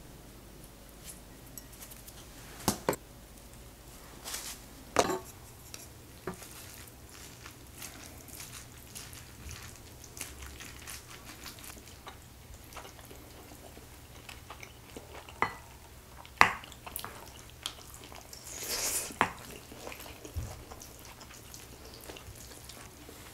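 Chopsticks and a spoon clinking and scraping against a ceramic bowl as rice, beef and egg are mixed and scooped: scattered single clinks with a short scrape near the end.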